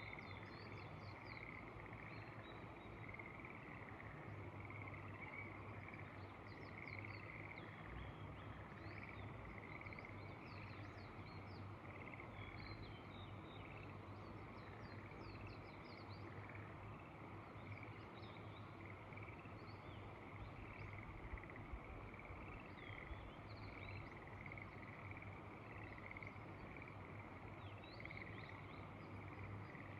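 A faint, continuous chorus of frogs calling, with short high bird chirps scattered through it over a steady low hum.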